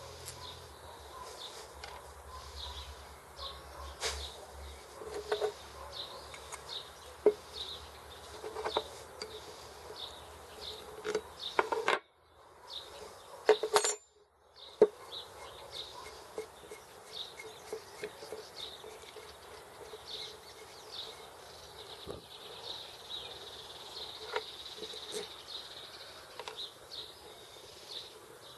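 Light metallic clicks and clinks of a bicycle drum-brake hub being taken apart by hand: axle nuts, washers and cone turned off the axle and set down. The clicks are short and scattered, and the sound cuts out briefly twice near the middle.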